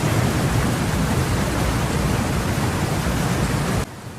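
Steady rushing noise of water, as of heavy rain or fast floodwater, that cuts off abruptly near the end.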